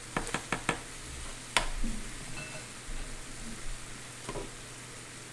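Food sizzling steadily on an electric grill plate, with a quick run of four clicks in the first second, then single sharper knocks about a second and a half in and again near the end.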